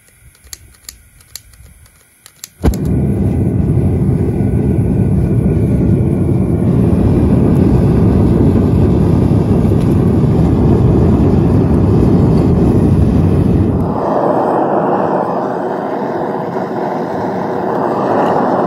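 A gas-fired melting furnace being lit: several sharp igniter clicks, then the burner catches with a sudden bang and runs with a steady, loud rushing noise. About 14 s in the noise turns somewhat higher-pitched and a little quieter.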